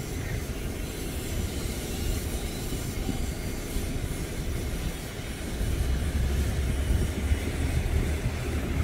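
Low, steady rumble of a car driving over a bumpy road, heard from inside the car, with tyre and engine noise. It grows a little louder about halfway through.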